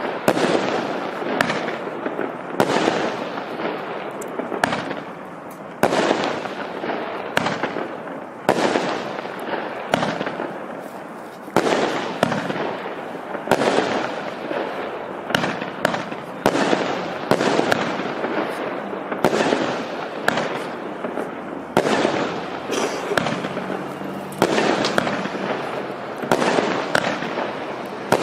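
0.8-inch fireworks cake firing shot after shot, about one a second. Each shot is a sharp report followed by a fading hiss.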